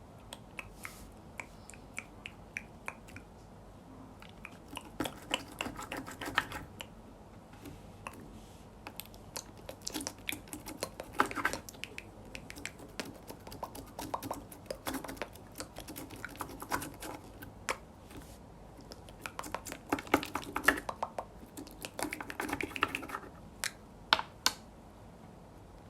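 Slime being squeezed and worked by hand, making bursts of sticky clicking and crackling pops about every four seconds, with single clicks in between.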